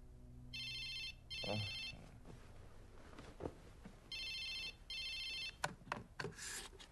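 Telephone ringing in a double-ring pattern: two pairs of short trilling rings about three and a half seconds apart. A few sharp clicks and a brief rustle come after the second pair.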